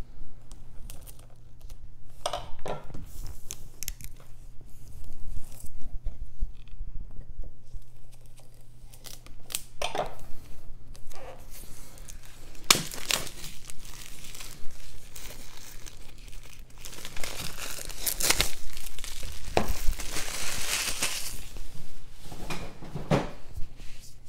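Packaging and cardboard contents of a board game box being handled and unpacked: irregular rustles and scrapes, with a longer stretch of rustling about twenty seconds in.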